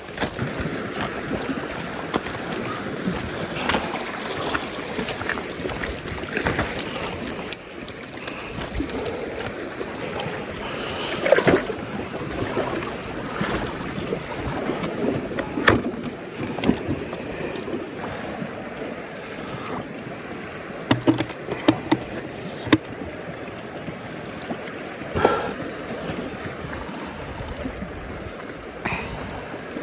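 Lake water lapping and sloshing, with a scatter of short splashes or knocks.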